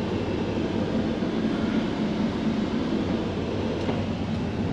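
Semi truck's diesel engine idling: a steady low rumble with an even hum.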